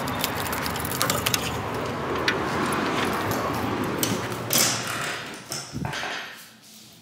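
Keys jangling and the clicks and clatter of a door being unlocked and opened, over a steady outdoor hiss. The background drops to a quiet room about six seconds in.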